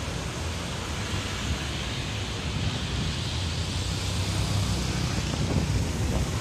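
Road traffic passing close by: car and motorcycle engines and tyres over a steady low rumble, growing louder toward the end as vehicles pass near.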